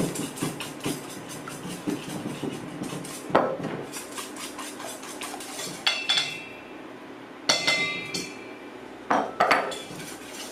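Wire whisk beating egg yolks and sugar in a stainless steel bowl: quick, steady scraping strokes of the wires against the metal. Several louder clinks with a short metallic ring come about three seconds in, again around six and seven and a half seconds, and twice near the end.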